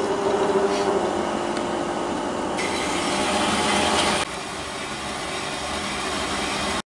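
Horizontal metal-cutting bandsaw switched on and running, its blade cutting through aluminium round bar. The sound drops a little about four seconds in and cuts off suddenly near the end.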